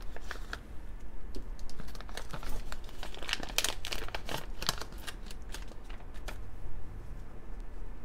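Thin plastic Happy Meal toy bag crinkling and crackling as it is handled and opened by hand, the crackles thickest in the middle and thinning out near the end.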